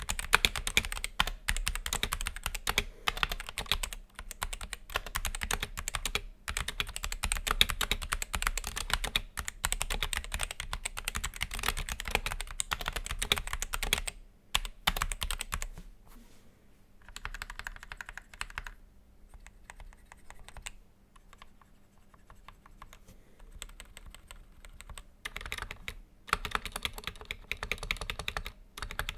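Typing on a Dark Project KD-2 60% mechanical keyboard with Gateron optical Black linear switches and lubricated Cherry-style stabilisers: a fast, continuous run of key clicks that thins out and grows quieter for about ten seconds in the middle, then picks up again near the end.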